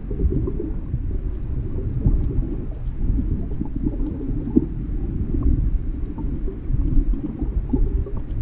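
Muffled underwater rumble of moving water, heard through an action camera's waterproof housing, with a few faint clicks.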